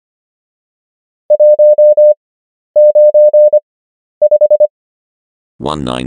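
Morse code practice tones: a single steady-pitched beep keyed at 25 wpm character speed sending the number 195 (·−−−−, −−−−·, ·····), with wide Farnsworth gaps between the three characters. The beeps start about a second in, and the last character is a quick run of five short beeps.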